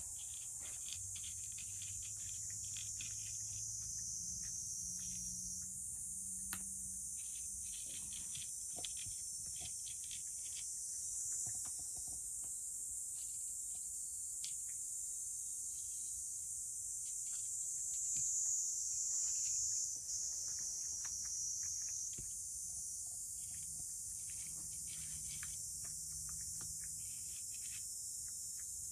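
A cat eating from a dish: many small, irregular chewing clicks over a steady high-pitched hiss.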